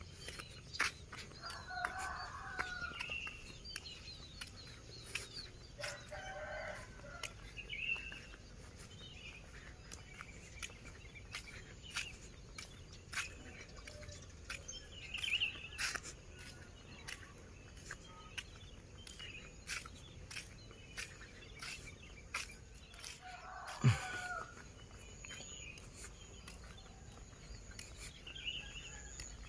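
Roosters crowing now and then, with smaller birds chirping, over a steady patter of clicks from footsteps and a handheld phone while walking. A sharp knock about 24 s in is the loudest moment.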